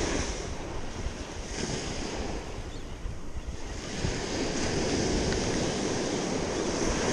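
Ocean surf breaking and washing up the beach, with wind buffeting the microphone; the surf grows louder about four seconds in.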